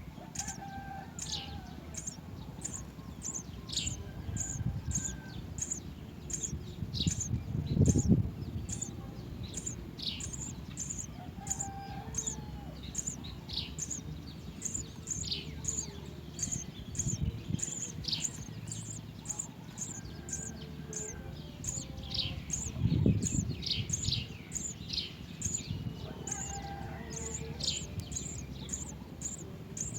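Birds chirping: a steady run of short, very high chirps, about two to three a second, with lower falling calls mixed in. Two low thuds come about eight seconds in and again some fifteen seconds later.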